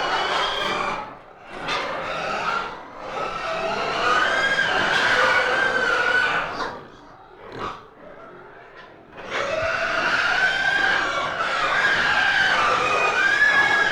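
Piglets squealing in a pen before feeding: many drawn-out, wavering squeals overlapping, with a brief quieter lull about halfway through before they start up again.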